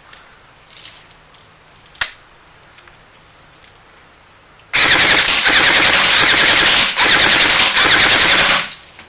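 JG M5-S6 electric airsoft gun firing on full auto: two long bursts back to back, the first about two seconds and the second about one and a half, with a brief break between them. A single click comes a couple of seconds before the firing.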